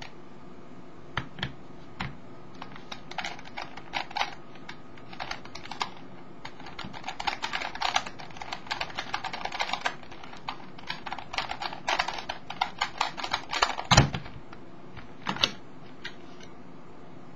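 Plastic Skewb puzzle being turned fast in a speedsolve: rapid, irregular clusters of sharp clicks, like typing, as the corners and centres snap round. The turning stops with one louder knock about fourteen seconds in, followed by a couple of lighter clicks.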